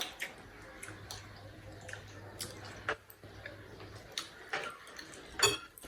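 Eating noises at a meal: scattered small clicks and taps of plates, utensils and mouths, the sharpest click near the end, with a faint low hum in the middle.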